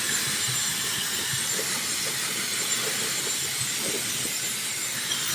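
Dyson Supersonic hair dryer running steadily as it dries a dog's coat: a smooth, even rush of air with a faint high whine.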